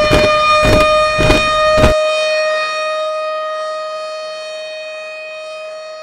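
A steady siren-like whistle tone, with heavy thuds about two a second that stop about two seconds in. The tone then holds on and slowly fades.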